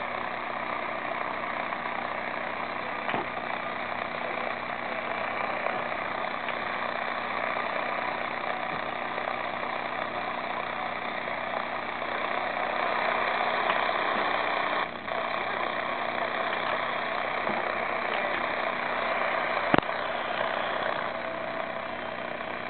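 Sony Watchman pocket TV's speaker giving out steady static hiss from a weak, snowy analog channel 4 signal, with a low buzz under it. A couple of faint clicks come through, the sharpest about twenty seconds in.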